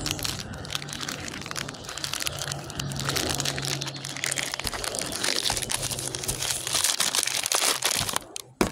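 Plastic bag crinkling and rustling as it is handled, with a faint low steady hum underneath that stops about seven seconds in.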